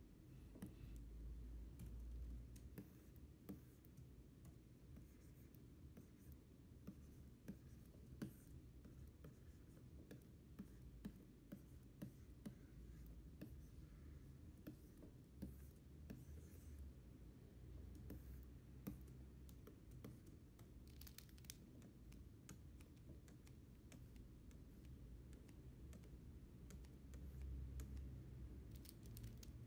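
Faint tapping and scratching of a stylus nib on a pen display's screen as letters are drawn, scattered short strokes and clicks over a low steady hum.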